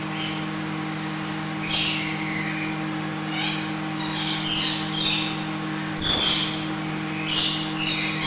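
Parrots calling in an aviary: a run of short, shrill screeches and chirps at irregular intervals, the loudest about six seconds in. A steady low hum runs underneath.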